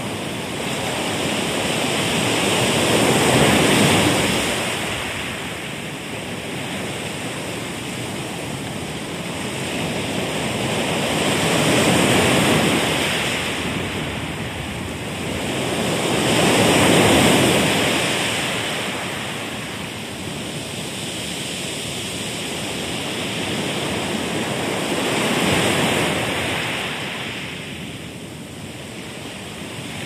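Ocean waves washing on a shore: a steady rush of surf that swells and ebbs about four times, each wave rising for a few seconds and then drawing back.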